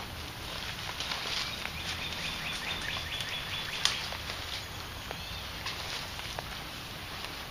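Footsteps and rustling of people moving through dense brush and leaves, with scattered faint crackles and one sharper twig-like snap about four seconds in. A faint run of high, evenly spaced chirps comes about two seconds in.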